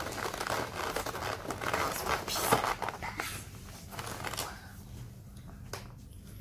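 Clear plastic blister trays of an action-figure package being handled, crinkling and crackling, with one sharp click about two and a half seconds in. The handling noise dies down after about four and a half seconds.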